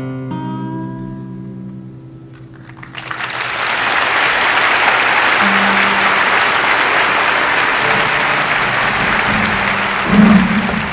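The last acoustic guitar notes ring and fade, then audience applause breaks out about three seconds in and carries on steadily. A brief louder low sound cuts in near the end.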